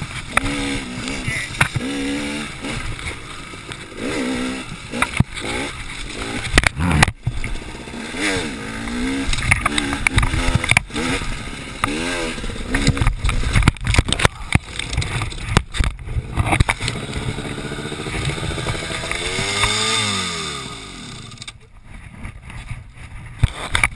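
KTM 300 two-stroke dirt bike engine revving up and down over a rough trail, with frequent knocks and clatter from the bike. About twenty seconds in the engine note sweeps down and falls away as the bike goes down, and it turns much quieter, with scattered knocks and scrapes.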